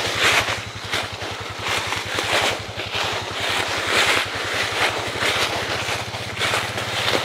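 Four-wheeler (ATV) engine idling steadily with a low, even hum. Footsteps crunch through dry leaf litter over it.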